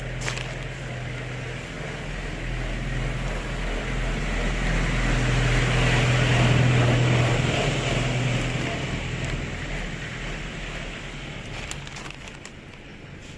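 A motor vehicle passing slowly: a low engine hum with road noise that grows louder to a peak about halfway through, then fades away.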